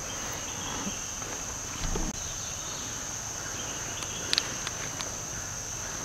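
Rainforest insect chorus: a steady, high-pitched buzz with no break. A soft knock comes about two seconds in, and a couple of sharp clicks come about halfway through.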